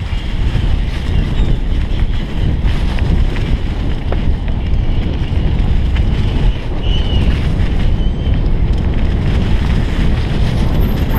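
Steady wind rumble buffeting the microphone of a camera on a fast-moving mountain bike.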